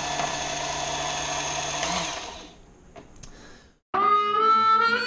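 Work Sharp Ken Onion Edition knife sharpener's motor running steadily with its blade grinding attachment, dying away about two seconds in, with a couple of faint clicks. Music starts suddenly about four seconds in.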